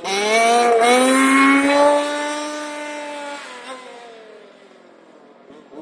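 Radio-controlled car on a full-throttle speed run: its motor note rises in pitch over about the first second, holds steady for about two seconds, then fades away as the car goes off into the distance.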